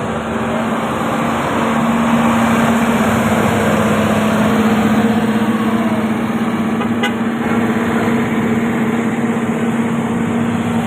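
A tour bus's telolet air horn, a multi-trumpet musical horn, held on one long steady note over engine and road noise.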